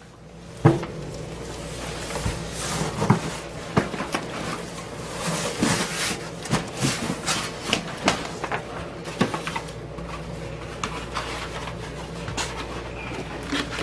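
Packing materials and parts being handled and pulled from a shipping box: irregular rustling and rubbing with many light knocks and clicks.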